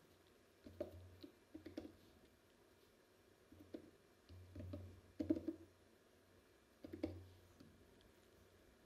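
Faint clicks and small knocks from hands pressing buttons and turning the trackballs and rings of a colour-grading control panel, in a few short scattered clusters.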